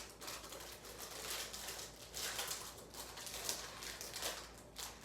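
Plastic packaging rustling and crinkling as it is handled, in uneven bursts.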